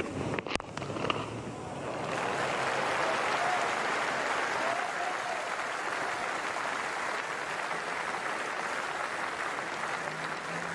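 A sharp knock about half a second in, then a cricket crowd applauding a boundary four: clapping that swells about two seconds in and keeps on steadily.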